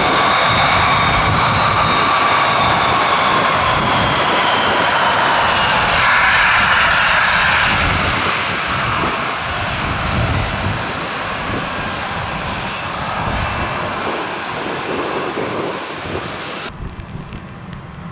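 Embraer E170's turbofan jet engines whining while it taxis; the whine sinks slightly in pitch over the first few seconds and the sound grows steadily fainter through the second half, with an abrupt change shortly before the end.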